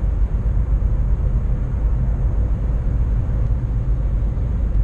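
Steady road and engine noise inside a Škoda car's cabin cruising at motorway speed: an even, low rumble of tyres, wind and engine.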